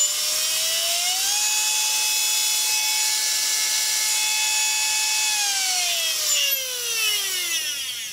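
Homemade brushless CNC spindle, a Turnigy P2627L 4200kv outrunner motor driving a Foredom H43T handpiece, spinning up with a high whine full of overtones. The pitch climbs over the first second and a half, holds steady for about four seconds, then falls steadily as the spindle winds down.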